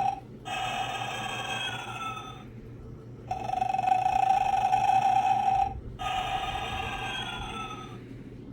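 Battery-powered animated snoring Santa figure playing its recorded snore through a tinny, crappy-sounding speaker. A steady buzzing snore of about two seconds alternates with a breath whose pitch falls, the cycle heard twice.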